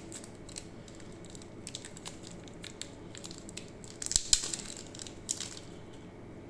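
Small clicks and light plastic crinkling as a smartwatch's charging cable is handled and freed from its wrapping, with a louder cluster of crackles a little past the middle.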